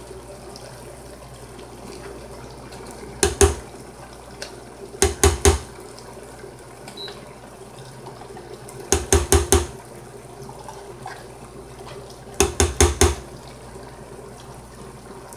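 Cans of tomato paste being banged against the pot and worked with a spatula to shake the thick paste out: four bursts of quick knocks, two to five at a time, a few seconds apart, over a steady low hum.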